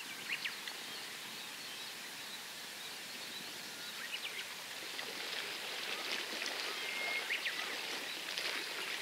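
Steady hiss of seaside outdoor ambience on the breakwater, swelling a little in the second half, with a few faint short high chirps scattered through it.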